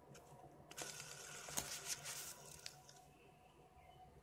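Faint rustling and scraping handling noise with a few soft clicks, starting about a second in and dying away after about three seconds.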